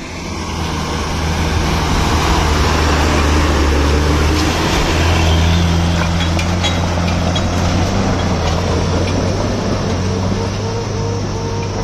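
Diesel engine of a heavy construction vehicle running loud and steady under load, its pitch climbing a little in the last few seconds as it speeds up.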